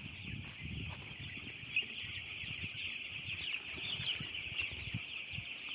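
A large flock of chicks peeping all at once: a continuous high chorus of many overlapping short calls, with scattered low thuds beneath.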